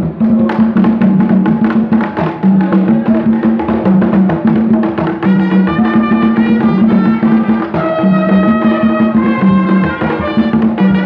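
Live Haitian folkloric drumming on tall hand drums, a fast, dense rhythm with a repeating low drum pattern. About five seconds in a trumpet joins with a stepping melody over the drums.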